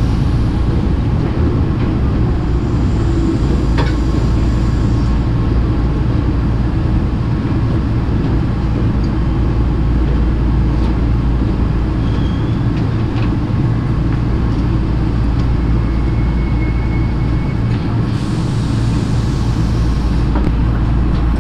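Hankyu commuter train running slowly into a station, heard from inside the carriage: a steady low rumble of wheels on rails and running gear.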